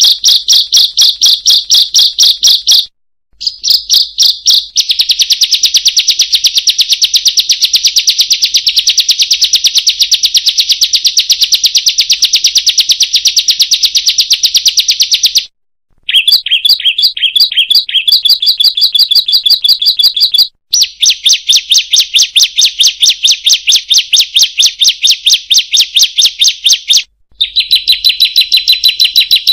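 Ciblek (bar-winged prinia) song: rapid, evenly repeated high-pitched notes in long unbroken runs. The song cuts off abruptly for a moment three or four times, as in a looped recording.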